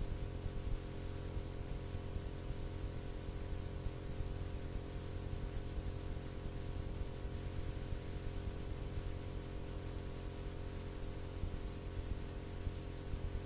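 Steady low hum with an even hiss and no distinct sound events: the background noise of the broadcast recording.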